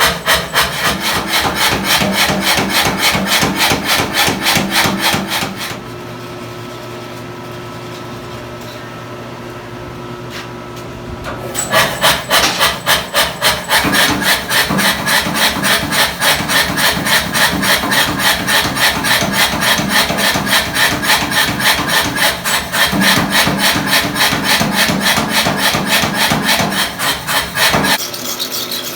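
Hot steel-and-nickel Damascus billet being struck in a fast, even run of hammer blows as the bar is drawn down. The blows stop about six seconds in, leaving a steady machine hum, and resume just before twelve seconds.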